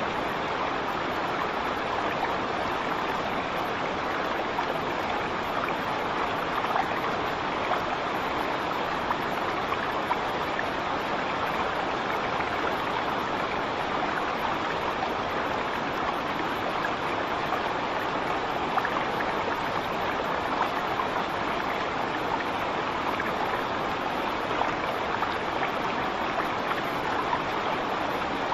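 Waterfall: falling water rushing steadily, an even, unbroken sound.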